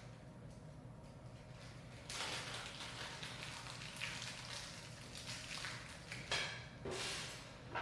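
Handling noise from a mini PC case's metal and plastic parts being worked by hand: irregular rustling and scraping, with a couple of sharp knocks near the end.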